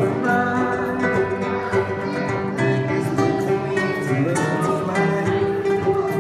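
Live acoustic guitar playing, with hand drums (bongos and congas) tapping along.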